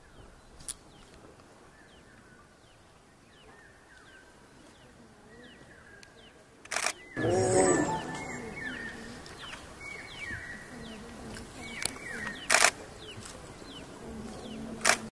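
A Bengal tiger lets out one deep, loud growling snarl about halfway through, lasting a second and a half, as the mating pair separates. Faint short falling chirps sound in the background, and there are a few sharp clicks.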